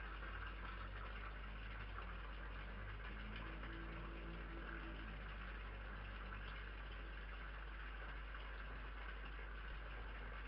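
Steady electrical hum and hiss from a security camera's microphone, with a faint low droning tone for a couple of seconds near the middle.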